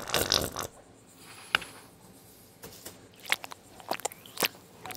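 A few small, sharp clicks and light scrapes from handling paint on a wooden board: paint squeezed out of a tube, then a bristle paintbrush dabbed into the puddle. The clicks are scattered, one about a second and a half in and several close together near the end.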